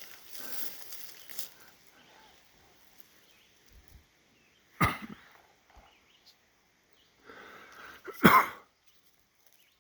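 Two short, sudden calls from an unseen animal in a tree, about three and a half seconds apart, the second louder, with fainter scuffling sounds around them.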